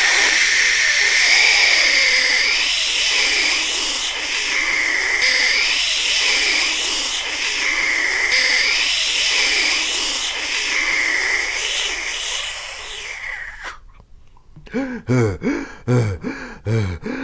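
Cartoon wind-blowing sound effect for a wolf's huff-and-puff: a long rushing blast of air with a whistling tone that rises and falls about every two seconds, cutting off suddenly about fourteen seconds in. Then come short, rhythmic, out-of-breath panting gasps from a cartoon voice.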